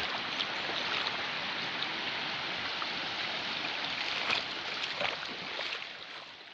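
Duda River in flood: a steady rush of fast water with a few faint clicks, fading out near the end.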